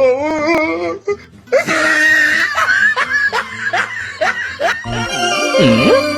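A person laughing hard in quick repeated bursts. About five seconds in, a swooping sound effect dips and rises as music begins.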